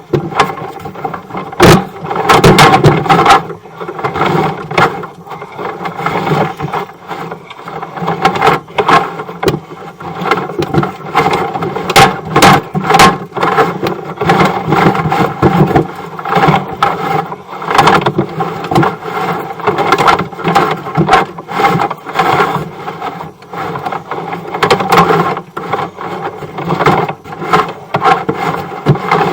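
Sewer inspection camera head and its push cable scraping and knocking along the inside of a drain pipe as it is fed down the line. Irregular clatters and scrapes run over a steady mechanical hum.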